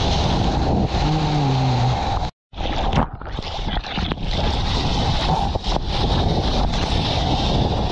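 Rushing water and wind buffeting an action camera on a surfboard as it rides a wave, with spray hitting the lens. A short low tone comes about a second in. Just after two seconds the sound cuts out for a moment, comes back muffled, then the full rush builds again.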